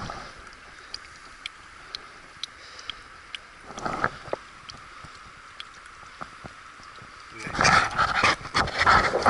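Steady rush of a river flowing over a stony bed, with faint scattered clicks. About seven and a half seconds in, a loud rough noise takes over.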